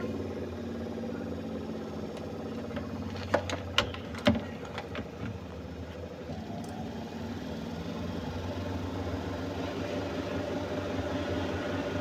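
Washing machine motor running with a steady hum, with a few sharp clicks about three to four seconds in.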